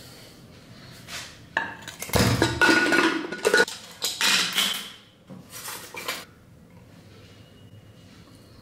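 Metal cooking pot and a serving spoon clanking and scraping against each other and the counter, with a dense run of clatter starting about a second and a half in and a short metallic ring within it, then a few lighter clatters that trail off before the end.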